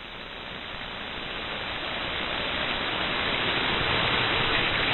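Receiver static on the 11-meter band at 27.025 MHz: a steady hiss that grows steadily louder.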